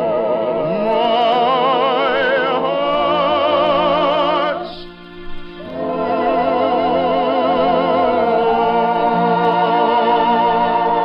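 Operetta singing with orchestra on an old radio broadcast recording: a voice holds long notes with heavy vibrato in two phrases, with a brief break about five seconds in.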